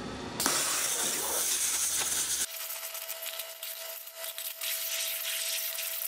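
OMAX waterjet cutting into a hard disk drive: a loud, steady high hiss of the jet and spray that starts about half a second in. About halfway through, a faint steady whine joins it and the low rumble drops away.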